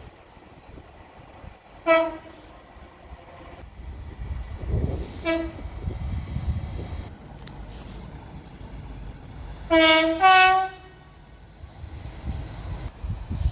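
Train horn sounding two short single blasts, about two and five seconds in, then a louder two-note blast near ten seconds, over the low rumble of a train. A thin, steady high whine comes in about seven seconds in.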